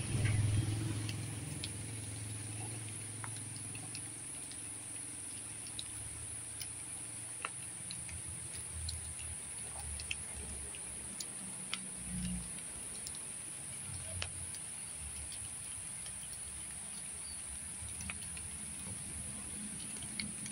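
Rural hillside ambience: a steady high-pitched insect drone, with a low engine hum that is loudest at the start and fades within the first few seconds, and faint scattered ticks.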